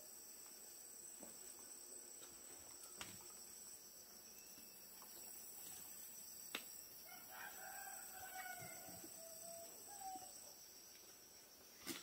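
A rooster crowing once, faint, starting about seven seconds in and lasting about three seconds. A few light clicks come before it, over a thin steady high tone.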